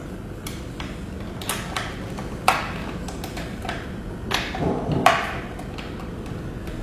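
Scattered sharp clicks and knocks of hotel door lock parts being handled and fitted into the door during the lock cylinder installation, the loudest about two and a half and five seconds in.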